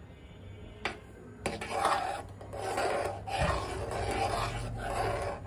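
A metal spoon scraping and stirring against the bottom and sides of a metal pan of milk that has split into paneer curds and whey, in repeated rasping strokes. Two light clicks of the spoon on the pan come in the first second and a half, before the scraping starts.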